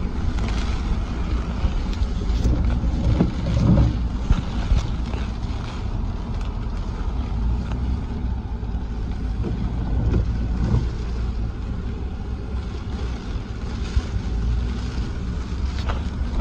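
Low, steady rumble of a vehicle driving, with wind buffeting the microphone and a few brief louder swells.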